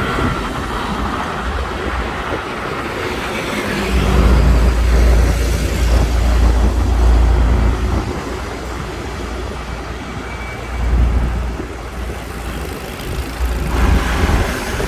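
Road traffic passing on a busy city road: a steady spread of car and engine noise, with a deep rumble that swells from about four seconds in and again near eleven seconds.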